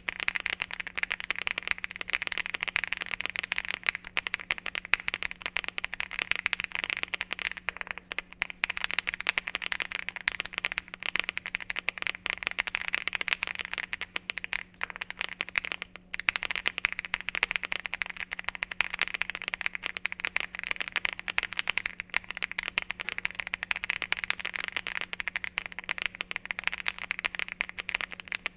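Continuous rapid typing on a Rainy75 mechanical keyboard with IKEYX Purple Bunny tactile switches (factory-lubed, POM stems, nylon bottom housings), a polypropylene plate and stock PBT doubleshot keycaps: a dense stream of keystroke clacks. A faint steady low hum sits underneath.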